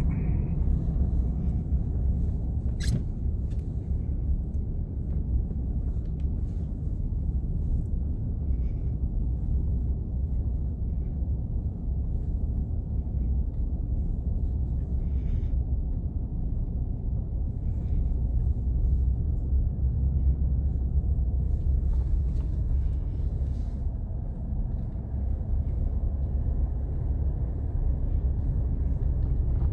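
Steady low rumble of a vehicle driving, its engine and tyre noise heard from inside the cabin. A single sharp click comes about three seconds in.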